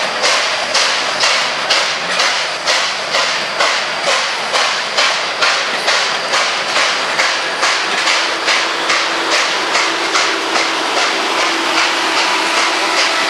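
Nickel Plate Road 765, a 2-8-4 Berkshire steam locomotive, chuffing steadily at about three exhaust beats a second as it works its train away. The beats grow weaker in the last few seconds.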